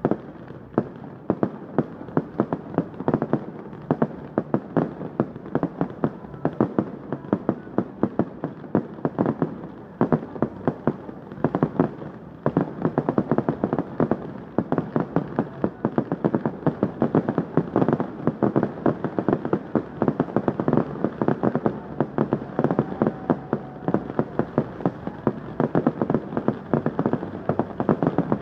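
Fireworks going off in a dense, unbroken barrage: rapid bangs and crackles, several a second.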